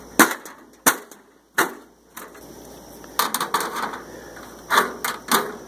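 Sheet-metal shelves clanking against a welded rebar cart frame as they are set in and test-fitted: three sharp knocks in the first two seconds, then a short rattle and two more knocks near the end.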